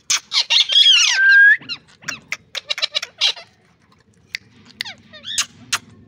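Rose-ringed parakeets squawking: a loud, rapid run of gliding screeches in the first second and a half that ends in a short held whistle, then shorter sharp calls, thinning out after about three seconds.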